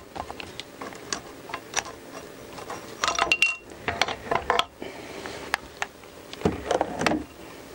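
Valve spring compressor being released and lifted off a motorcycle cylinder head: scattered metal clicks and clinks of tool on the head and valve spring, busiest about three to four and a half seconds in, with one short ring. A duller knock comes near the end.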